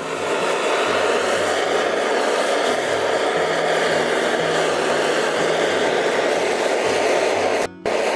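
A hand-held heating tool blowing steadily onto a fluxed steel scooter body panel, heating it for tinning. The rush cuts out for a moment near the end.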